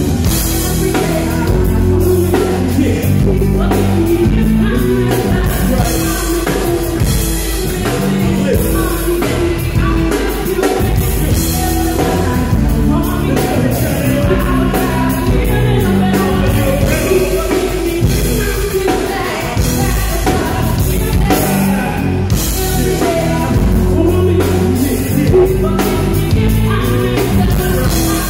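Live band playing loudly over the PA, a sung vocal over drums and bass, with a steady beat and repeating bass notes throughout.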